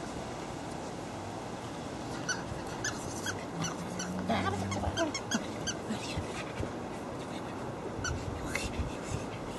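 Five-week-old Havanese puppies whimpering in many short, high-pitched peeps. The peeps start about two seconds in and come thickly through the middle.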